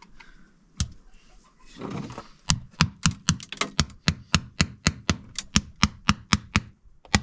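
Hammer tapping river stones down into wet cement: a fast, even run of sharp taps, about five a second, starting a couple of seconds in and pausing briefly near the end. Before that there is a single knock and a short scrape.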